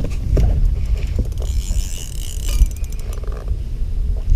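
Fishing reel drag clicking in a rapid run for about a second and a half as a hooked cownose ray pulls line off the spool, over a steady low rumble.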